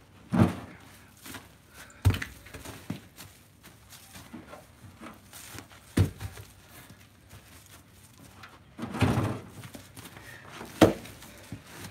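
Ash firewood rounds being pulled off a pickup's tailgate and set down on a woodpile, each landing with a dull wooden thunk: about five thuds spread over several seconds, with a longer, rougher knock about nine seconds in.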